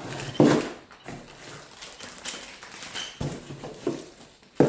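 Knocks and taps of heavy metal stand parts being handled and set down, with two loud knocks, about half a second in and near the end, and a few lighter ones between.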